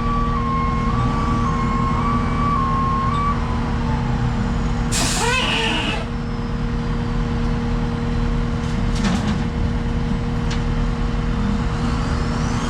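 Skid steer engine running steadily while it pushes material, with a steady whine for the first few seconds. A loud, sharp hiss with a squeal comes about five seconds in, and a faint rising whine near the end.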